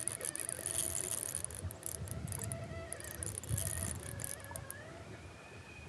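Baitcasting reel ticking in short irregular spells while a hooked smallmouth bass pulls against a bent rod, over low rumbling handling noise; the ticking stops near the end.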